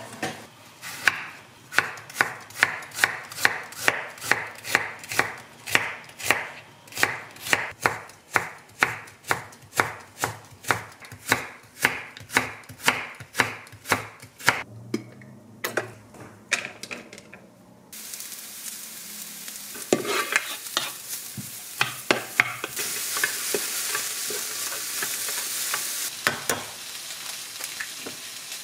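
Chef's knife slicing carrots into thin strips on a wooden cutting board, a steady rhythm of about two chops a second that stops about fifteen seconds in. In the second half a steady hiss with scattered clicks takes over.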